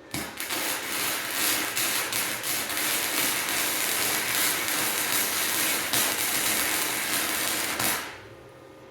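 MIG welding arc crackling steadily, run at high amperage for deep penetration while filling a ground V-seam in mild steel; it strikes up suddenly and stops near the end.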